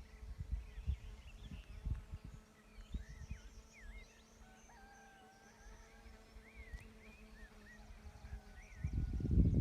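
Several small songbirds singing and calling outdoors, short chirps and warbling phrases one after another over a faint steady hum. A low rumbling noise rises near the end.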